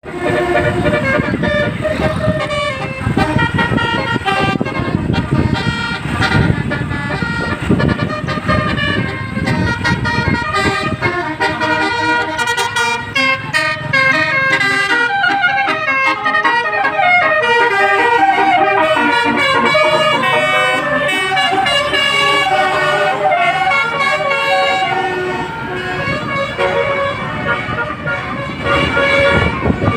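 An Indonesian bus's basuri 'telolet' horn playing melodic tunes as a string of stepping tones. A bus engine rumbles underneath, heaviest in the first ten seconds or so.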